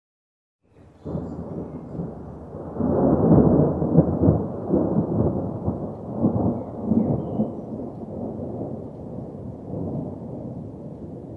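A thunder clap rumbling in about a second in. It peaks with a string of crackling cracks over the next few seconds, then rolls on and slowly fades.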